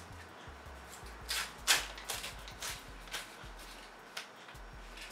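Hand-handling noises: a string of short rustles and light clicks as small objects are handled, the sharpest about a second and a half in.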